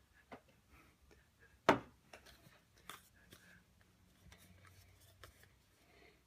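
Faint rustling and small clicks of a cardboard packaging insert being handled, with one sharper knock a little under two seconds in.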